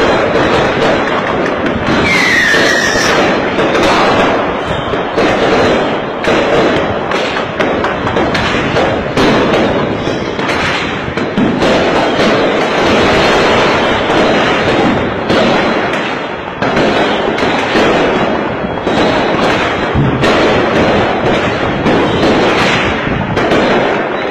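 A mass New Year fireworks barrage: many loud bangs and crackles overlapping with no let-up. A brief falling whistle comes about two seconds in.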